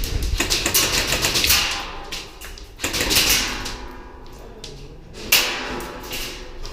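Airsoft guns firing in rapid bursts of sharp clicks, dense for the first couple of seconds, again about three seconds in, with one loud crack a little after five seconds.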